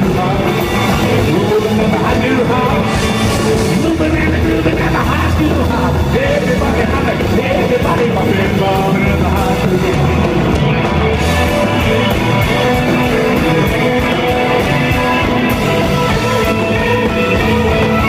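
Live rock and roll band playing loud through a hall PA: electric guitars, bass guitar and drum kit.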